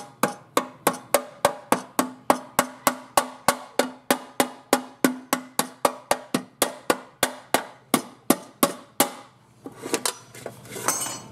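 Ball-peen hammer striking the steel mower deck's tack-welded sheet-metal patch about three times a second, rounding over its inside edge around the engine-mount hole. The blows stop about nine seconds in.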